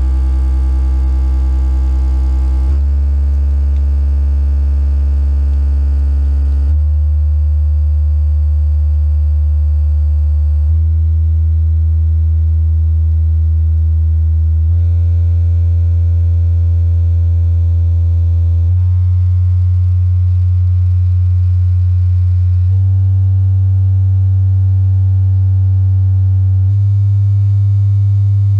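Loudspeaker playing a loud, low steady hum, the tone that shakes the hose's water stream, stepping up in pitch about every four seconds.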